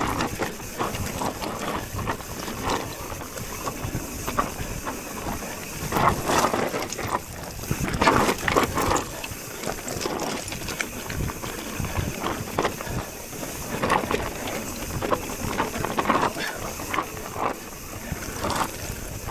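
Mountain bike running down a dirt trail: tyres rumbling and skittering over the ground, the bike rattling with frequent irregular knocks, and wind buffeting the action camera's microphone.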